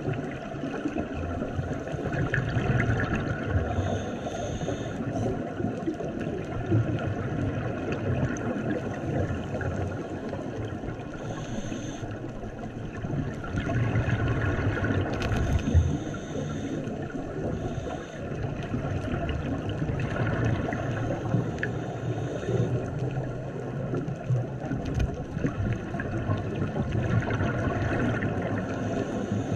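Scuba breathing heard underwater: the regulator hisses on each inhale and a low bubbling rumble follows on each exhale, the cycle repeating about every six seconds over a steady wash of water noise.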